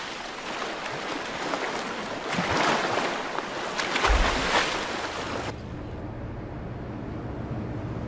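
Sea water rushing and splashing around a surfacing humpback whale. About five and a half seconds in, this gives way to the steady low rumble of a fishing boat's engine.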